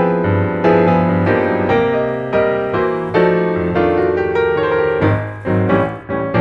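Background piano music: single notes and chords struck about every half second, each ringing and fading.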